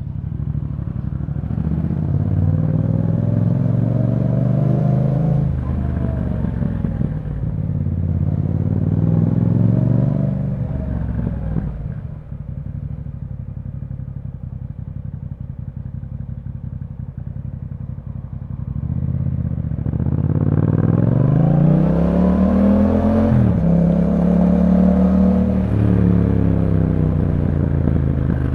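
2021 Yamaha MT-07's parallel-twin engine through an Akrapovic exhaust, pulling through the gears: the pitch rises, then drops at an upshift twice in the first ten seconds. It then runs low and steady for several seconds before pulling away again, with another upshift and a steadier run near the end.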